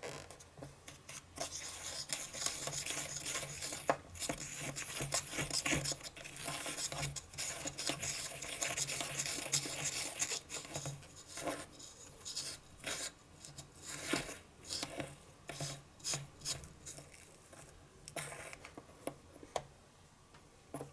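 A small utensil rubbing and scraping Konapun toy-cooking mix in a small plastic tray. A steady rasping goes on for several seconds, then breaks into shorter separate strokes in the second half.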